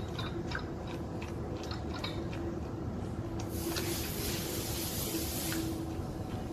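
Crunching footsteps and faint clanking of loaded farmer's-carry handles as the lifter walks away across the gravel, the clicks fading out about two seconds in. A rushing hiss follows for about two seconds in the middle.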